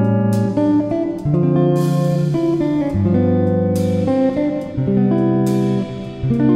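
Background instrumental music: a plucked guitar playing a melody of changing notes.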